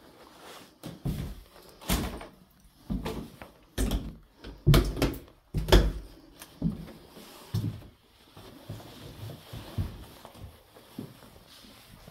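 Footsteps thudding down a bare staircase strewn with debris, about a step a second, the heaviest about five seconds in; then softer steps and scuffs across a littered floor.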